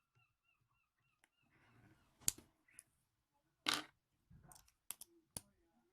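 Small plastic Lego minifigure pieces being handled: soft rustling with four sharp clicks, the second one the loudest.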